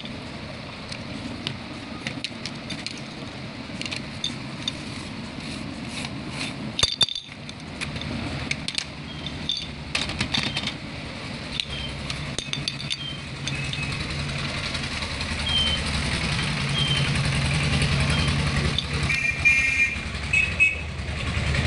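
Plastic toy dominoes clicking and clattering as they are handled and pushed into the red plastic cartridge of a toy domino train set. A low steady hum builds up in the second half, with a few short high chirps near the end.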